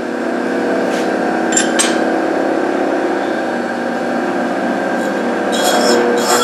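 Connecting-rod cap grinder running steadily with a motor hum and two light clicks about one and a half seconds in. Near the end, the grinding wheel starts cutting the parting face of a GM connecting rod cap, adding a hissing metal-grinding sound.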